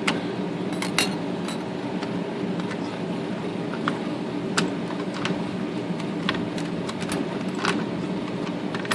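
Scattered small metallic clicks and clinks as parts of a Smith Corona electric typewriter's carriage-return mechanism are worked loose by hand, over a steady low hum.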